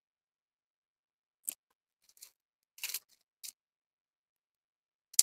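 Short crisp snaps and rustles of culantro stalks being trimmed by hand: four or five separate ones, with the sharpest near the end.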